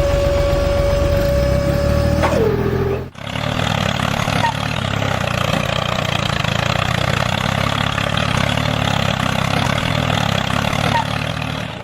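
A small motor whines steadily, then winds down and stops a little over two seconds in. After a break, a small engine runs steadily with a fast, even chugging.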